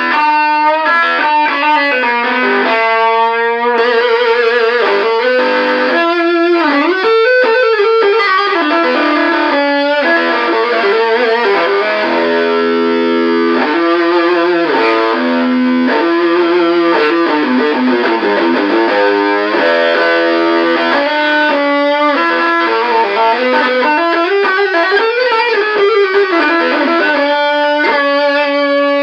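Electric guitar played through a Muff Fuzz op-amp fuzz pedal into an amp: a distorted lead line of sustained notes with string bends and vibrato.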